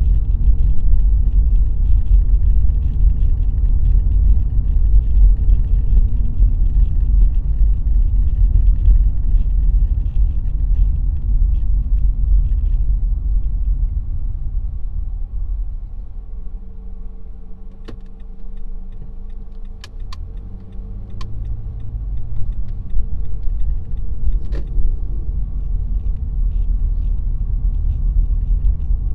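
A car driving, with a strong low rumble of road and engine noise. It eases off for a few seconds past the middle as the car slows, leaving a steady hum and a few sharp clicks, then builds again.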